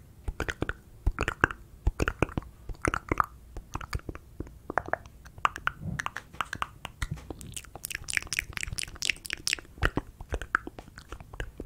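Close-miked ASMR mouth sounds: a quick, irregular run of wet clicks, smacks and tongue pops right against the microphone. About eight seconds in comes a brief cluster of hissy, sibilant mouth sounds.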